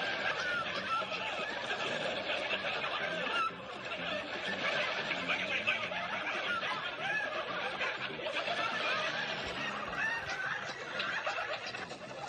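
Several people laughing together, overlapping chuckles and giggles, with a brief lull about three and a half seconds in.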